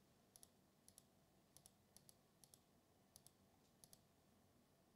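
Near silence, broken by faint, sharp clicks that come in quick pairs, seven pairs spaced about half a second to a second apart.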